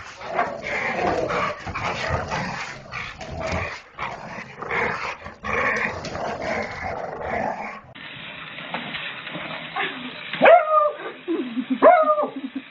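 Two dogs play-fighting, with a dense run of growling and yipping for the first eight seconds or so. Then a beagle barks loudly twice, about a second and a half apart, with a low growl between the barks.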